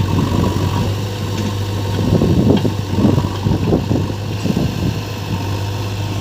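Heavy diesel engine running steadily at a low idle, with a stretch of louder, uneven rumbling about two seconds in.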